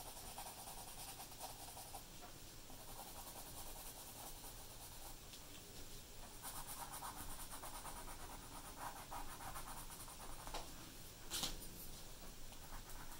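Faint scratching of a graphite pencil on paper in many quick, repeated strokes as lines are drawn. Near the end there is a single sharp click.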